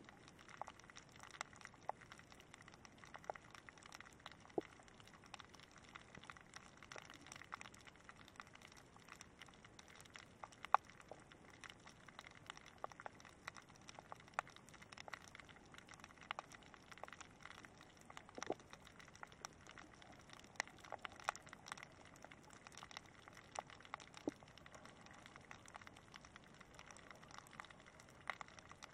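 Faint underwater ambience picked up by a submerged camera: a low hiss with frequent, irregular sharp clicks and crackles.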